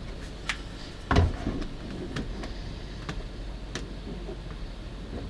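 Scattered clicks and light knocks, with one heavier thump about a second in, over a steady low background hum.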